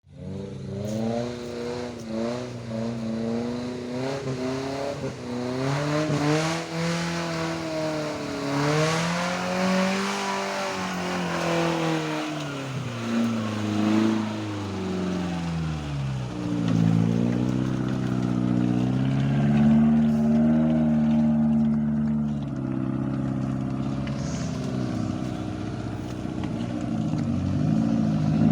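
Off-road 4x4 engine revving up and down over and over, its pitch rising and falling every second or two, with the highest revs about ten seconds in.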